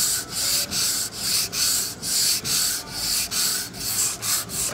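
Hand sanding with sandpaper wrapped around a contour sanding block, rubbed in quick back-and-forth strokes, about three a second, along a wooden moulding to clean off its old finish.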